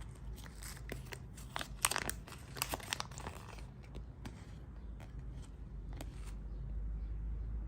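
Crinkling and tearing of a surprise-egg wrapper being unwrapped by hand, dense and irregular for the first few seconds, then only a few scattered crackles over a low steady hum.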